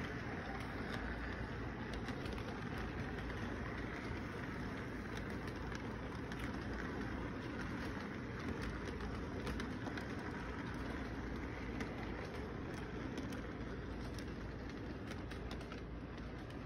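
Model train rolling past on its track: a steady rumble with scattered sharp clicks from the wheels over the rail joints, easing slightly near the end.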